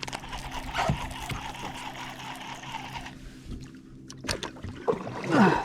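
Water sloshing and trickling around a kayak, with a few sharp knocks about four seconds in.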